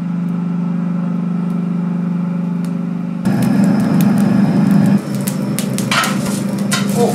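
Steady hum of the coal forge's air blower, getting louder and rougher about three seconds in. Near the end come clinks and scrapes of a steel poker raking the burning coal.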